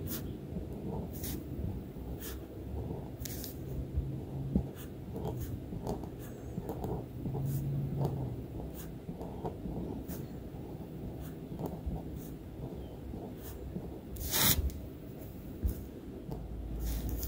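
Sharpie Pen's fine tip scratching across paper in short wiggly strokes, dotted with small clicks as the tip lifts and sets down, and one louder click about fourteen seconds in.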